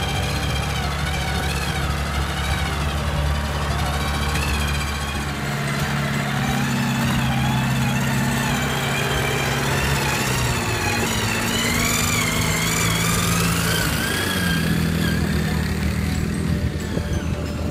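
Background music: a wavering high melody line over sustained low notes that change every few seconds.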